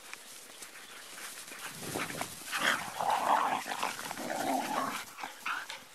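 Lurchers play-fighting, growling and scuffling at each other, starting about two seconds in.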